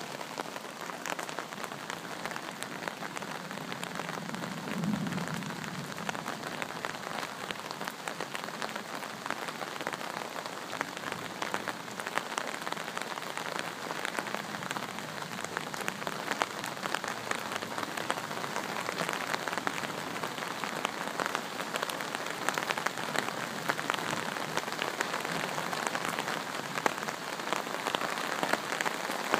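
Heavy rain pattering steadily on leaves and ground, a dense hiss of countless drops that grows a little heavier near the end. About five seconds in, a brief low rumble of thunder swells and fades under the rain.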